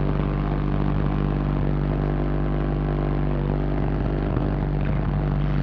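Car audio subwoofers holding one sustained bass tone at high power during a sound-pressure meter run, heard from outside the sealed car as a steady, unchanging drone; the meter shows about 146 dB.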